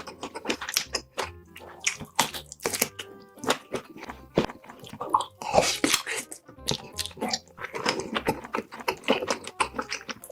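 Close-up eating sounds of sausages being bitten and chewed: a dense, irregular run of sharp crunches and wet mouth clicks, over quiet background music.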